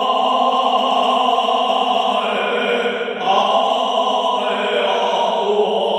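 Doorbell (calling bell) melody playing in long held notes, changing note about three seconds in.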